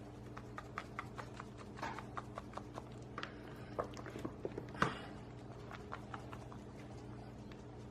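Paprika being shaken out of a spice jar: a run of light, irregular clicks and taps, a few a second, with one louder tap about five seconds in, over a steady low hum.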